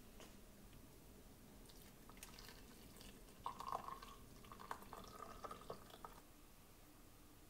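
Hot water poured in a thin stream from a gooseneck kettle into a ceramic mug. A few faint clicks come first, then the pour trickles from about three and a half seconds in until it stops about six seconds in.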